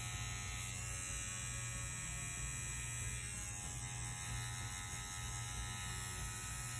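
Bronc V10 Hummingbird rotary tattoo machine, its Swiss motor running a 17 round mag needle cartridge at 7.5 volts on a wireless power supply: a steady, even electric buzzing hum. It runs smoothly, with no sign of trouble.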